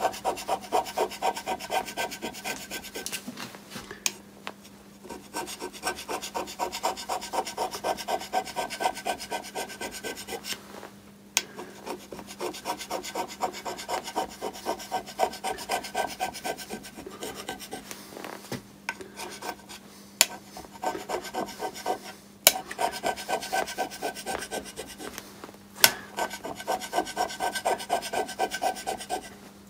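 Flat hand scraper working an aluminium plate: rapid short scraping strokes in runs, broken by brief pauses, with a few sharper clicks. Little pressure is needed because aluminium is soft.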